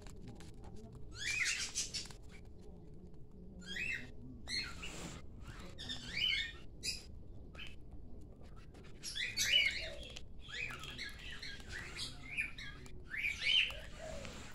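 Pet lovebirds and a cockatiel calling: short bursts of high-pitched chirps and squawks, repeated every second or so.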